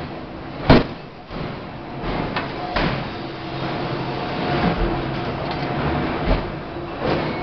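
2-ton forging hammer striking a red-hot workpiece: one heavy blow about a second in, then a few lighter blows, over the steady hum of forge-shop machinery.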